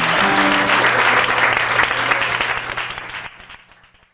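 Audience applauding at the end of a band's song, with the last held notes of the band ringing under the clapping; it all fades out about three seconds in.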